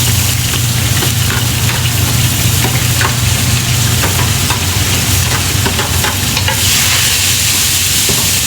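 Onions sizzling in hot olive oil in a pan while being stirred, with small scrapes and clicks of the utensil; the sizzle grows louder about two thirds of the way through. A steady low hum runs underneath.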